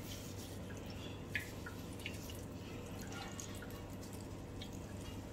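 Whey dripping from a squeezed cotton cloth of chhena into a steel mesh strainer set over a pot: a few faint separate drips, one a little louder about a second and a half in, over a low steady hum.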